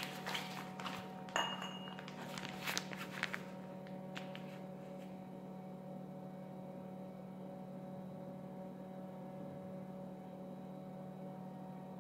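Light knocks and handling noises as a piping bag is squeezed over a silicone mould on a hard countertop, a few scattered taps in the first few seconds, then only a steady low hum.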